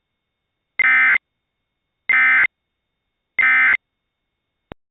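Emergency Alert System SAME data tones: three identical short bursts of raspy digital warbling, each about half a second with about a second of silence between them, the End of Message code that closes the alert. A short click follows near the end.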